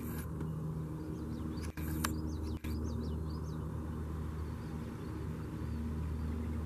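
Steady low outdoor rumble with a faint hum in it, and faint high bird chirps through the first few seconds. A few sharp clicks break in, about two and two and a half seconds in.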